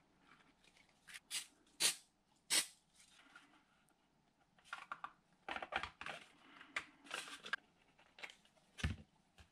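Hands handling hard 3D-printed plastic parts on a cardboard sheet while gluing them. Scattered short clicks, taps and rubs, thicker in the middle, with the loudest knocks about two and a half seconds in and near the end.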